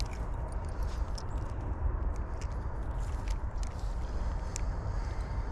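Light, scattered clicks from a spinning reel and rod being handled while a fish is played on ultralight tackle, over a steady low rumble.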